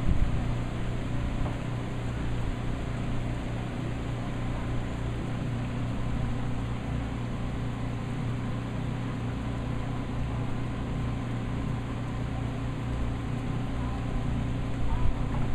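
Storm wind buffeting the microphone: a steady, fluttering low rumble over an even outdoor wash, getting a little louder near the end.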